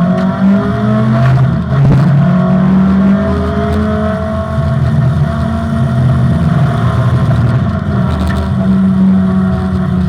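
Opel Manta rally car's four-cylinder engine driven hard on a stage, its pitch climbing and falling again and again as it accelerates, changes gear and lifts off.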